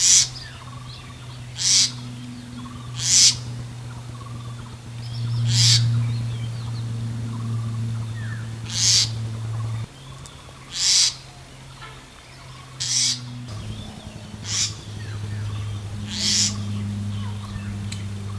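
A bird giving short, harsh, hissing calls about every one to two seconds, with fainter chirps and whistles between them. A steady low hum runs underneath and shifts in pitch twice.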